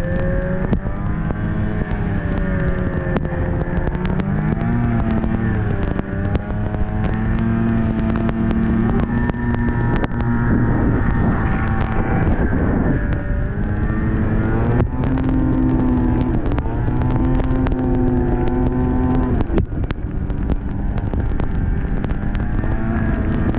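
Snowmobile engine running while riding, its pitch rising and falling with the throttle: dropping away around the middle and picking back up a couple of seconds later.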